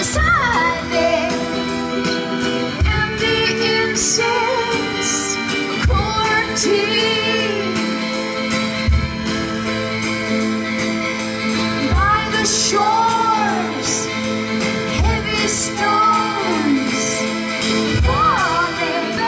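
Live rock band with a woman singing, her voice gliding over a sustained chord from the band, and a deep bass drum struck about every three seconds.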